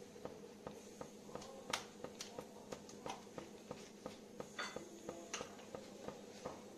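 Tomato purée frying in butter in a non-stick pan, sputtering with faint, irregular pops and crackles as it cooks down.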